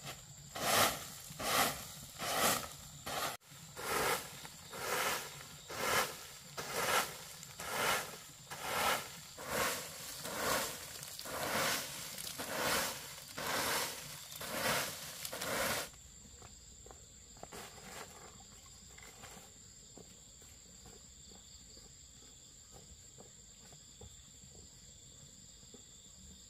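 Palm-leaf broom sweeping dry leaves over a dirt yard in steady swishing strokes, a little more than one a second. After about sixteen seconds the sweeping stops, leaving quiet outdoor background with a faint steady high tone.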